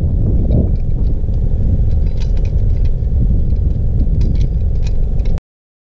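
Wind buffeting the microphone as a loud, uneven low rumble, with light clicks and rattles of gear being handled in a car's trunk. The sound cuts off abruptly about five seconds in.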